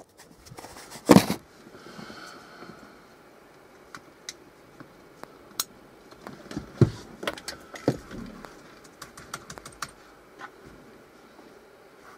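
Scattered, irregular key clicks of typing on a laptop keyboard inside a car, with one loud knock about a second in.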